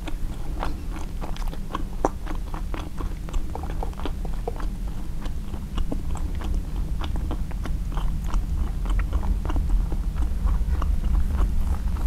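Close-miked chewing and biting of a turkey sausage, egg and cheese bagel sandwich: many small irregular clicks and crunches from the mouth, over a steady low hum.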